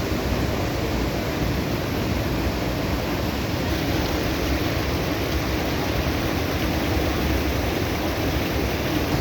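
Steady rush of a large waterfall, an even noise that holds without change.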